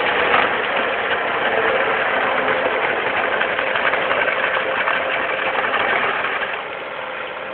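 Gehl skid-steer loader running with its asphalt milling attachment grinding the road surface: a loud, steady noise that drops in level near the end.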